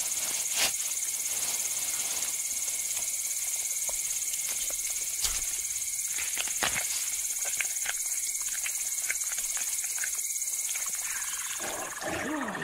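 A steady, high chorus of insects shrilling, with scattered short clicks and rustles. Near the end the insect sound drops away and birds start calling.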